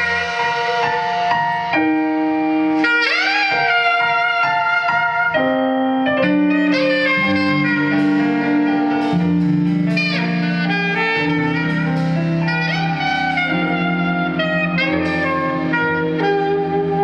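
Saxophone playing an expressive solo line, with bending, scooped notes, over a live band's keyboard and bass accompaniment.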